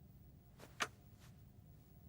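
A single sharp click about a second in, with a few fainter ticks around it, over a quiet low hum.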